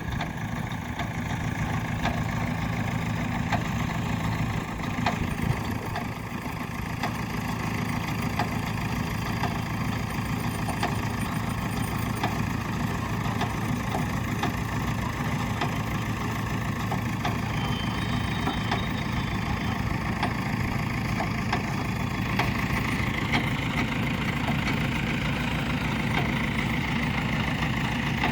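JCB 3DX backhoe loader's diesel engine running steadily at low revs, with scattered short clicks and knocks over it.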